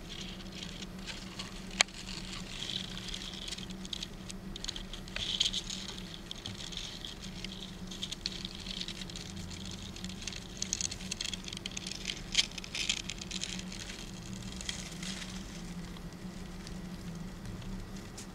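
Irregular dry crackling and small clicks of a Saga pedo katydid larva chewing dry oat flakes, busiest from about two seconds in until near the end, with one sharp click near the start.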